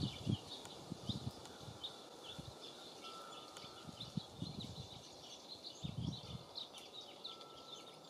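Small songbirds chirping in many quick, short, high notes, with irregular gusts of wind buffeting the microphone.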